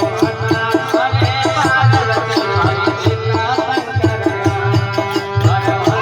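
Instrumental interlude of a Rajasthani devotional bhajan: a melody instrument plays held and gliding notes over a fast, steady hand-drum rhythm, without singing.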